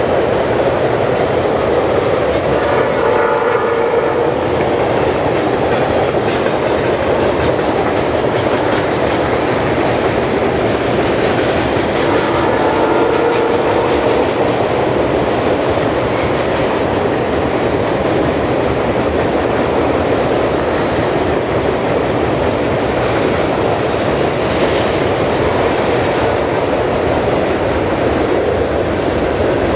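Railway tank cars of a long freight train rolling past: a steady rumble and clatter of steel wheels on the rails. A faint tone comes in and fades twice, about three seconds in and again around thirteen seconds.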